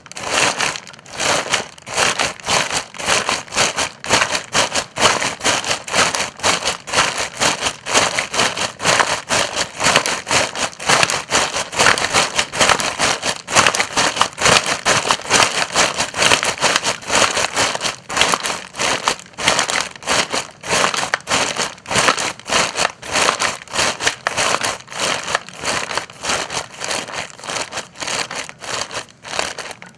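Footsteps walking on dry leaves, each step a crackling crunch, in a steady, even walking rhythm.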